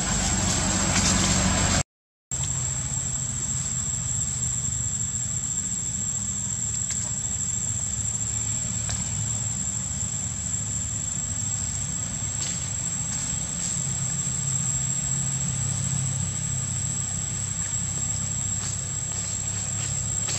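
A steady low engine-like hum, as of a motor vehicle idling, that shifts slightly in pitch partway through, with a constant thin high whine above it and a few faint clicks. The sound drops out completely for a moment about two seconds in.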